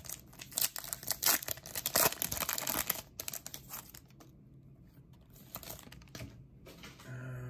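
Foil trading-card pack wrapper being torn open and crinkled in the hands: a dense crackle for about three seconds, then quieter, scattered rustles as the cards come out.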